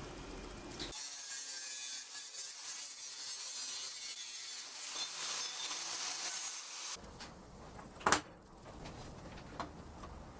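Small angle grinder on a roller carriage stand cutting, a rasping sawing noise for about six seconds that then stops. A single sharp knock follows about eight seconds in.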